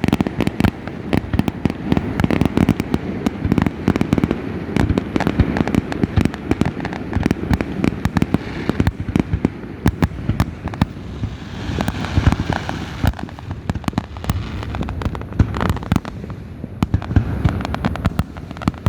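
Fireworks going off in a rapid, continuous barrage of pops and bangs, with a brief hiss about twelve seconds in.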